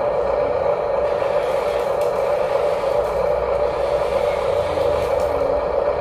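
Steady whir of the small electric motors and gears of Huina RC construction models running.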